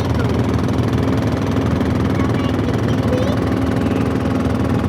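Fishing boat's engine running steadily at an even speed, with no change in pitch.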